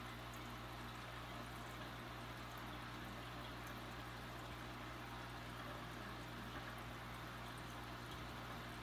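Aquarium air stone bubbling steadily: a constant fine fizz of rising bubbles over a low, steady hum.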